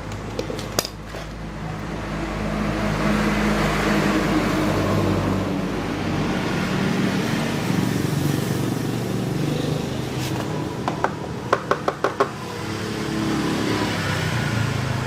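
Scooter engine running, its revs rising and falling, with a quick run of about five sharp clicks between eleven and twelve seconds in.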